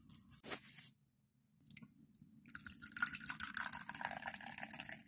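A brief rustle, then from about two and a half seconds in, liquid pouring from a flask into a mug, splashing and filling, fading away near the end.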